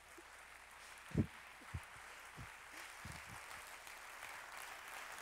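Audience applauding at the end of a talk, growing steadily fuller, with a few dull thumps in the first three seconds, the loudest about a second in.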